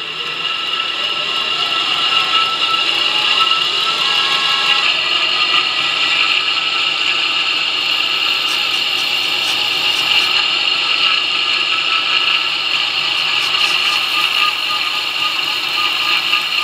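2x72 belt grinder on a variable-speed motor drive spinning up over the first couple of seconds, then running steadily while a knife blade is worked against its coarse Scotch-Brite surface conditioning belt.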